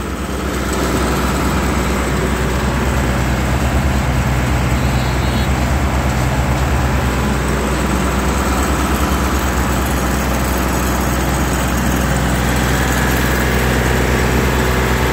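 Engine of a kerb laying (slipform kerb) machine running steadily with a low droning hum as it extrudes a concrete kerb, slightly louder from about a second in.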